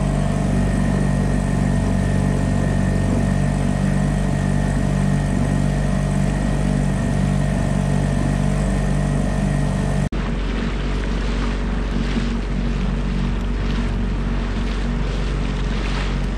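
Outboard motor running steadily under way, with the rush of the boat's wake. After a cut about ten seconds in, the motor is lower under splashing water and wind noise on the microphone.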